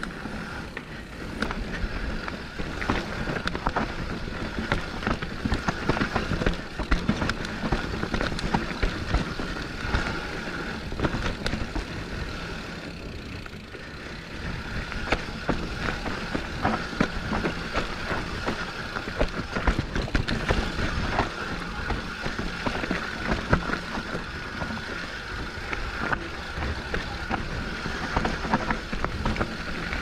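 Santa Cruz Bronson mountain bike descending a rough trail: the tyres and the frame, chain and parts of the bike clatter constantly with irregular knocks and rattles over the ground, with a steady high-pitched buzz running underneath at times.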